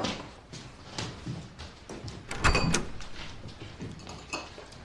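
Several light knocks and clatters, with a cluster of knocks and a brief ringing clink about two and a half seconds in.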